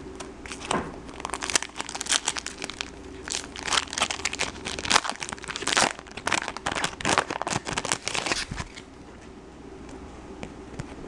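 Foil wrapper of a 2012 Bowman Chrome baseball card pack crinkling and tearing as it is opened: a dense run of crisp crackles lasting about eight seconds, then dying away.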